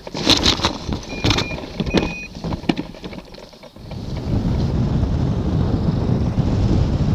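Hang glider touching down: a run of knocks and rattles from the base-bar wheels and frame meeting the grass, with two short squeaks. After a brief lull, steady wind rush buffets the microphone as the glider flies another approach.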